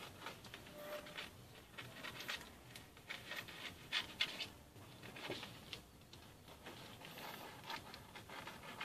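Scissors cutting rounds out of a vanilla sponge cake sheet on baking paper: a run of faint, short snips and rustles.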